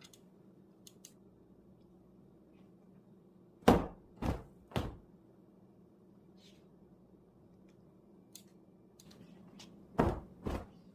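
Kitchen handling sounds: three hard knocks about half a second apart, then two more near the end, with a few faint clicks between, like containers or a door being knocked and closed.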